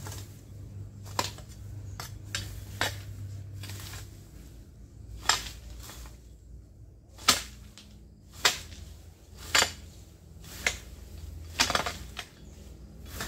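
Sharp clinking clicks, irregularly spaced about one a second, from garden work among plants as stems are cut or picked, over a low steady hum.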